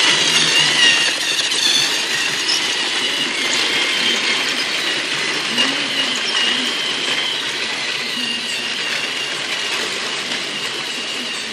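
Battery-powered toy train engine running along plastic track while pulling a long string of cars: a steady small-motor whir with wheel rattle, slowly getting quieter.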